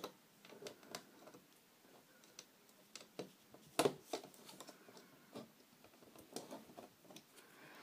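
Faint, irregular clicks and taps from fingers and a plastic hook working rubber bands on the pegs of a plastic loom-band loom. The loudest click comes a little under four seconds in.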